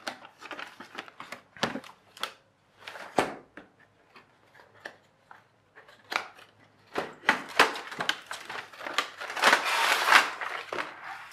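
Cardboard toy box and its plastic tray being handled and opened: scattered clicks, taps and scrapes, then a longer, louder sliding and rustling scrape about nine to ten seconds in as the plastic insert comes out of the box.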